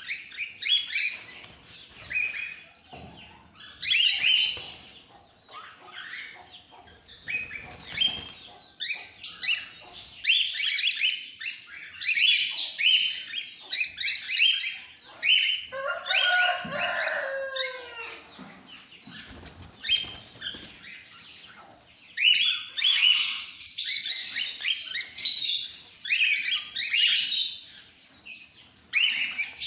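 Flock of cockatiels chirping and chattering while they feed from a seed bowl, with many short high calls and clicks. About sixteen seconds in, one bird gives a longer call that falls in pitch.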